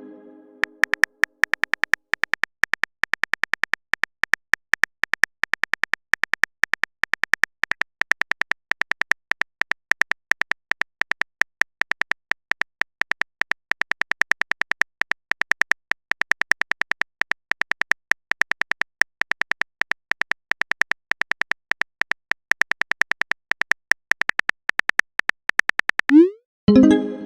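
Typing sound effect from a chat-story app: a rapid, irregular stream of short clicks, several a second, with a bright edge, as a text message is typed out.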